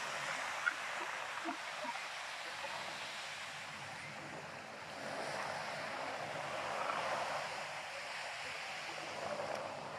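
Surf breaking and washing up a sandy beach: a steady hiss of water that swells from about halfway through.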